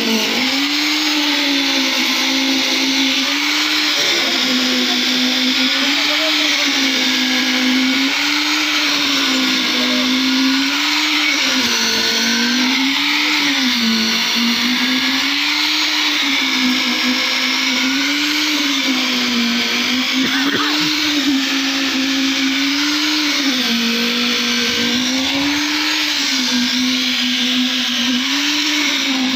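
Motor of concrete-pouring machinery running steadily, its pitch dipping and recovering about every two seconds, as under a cyclic load.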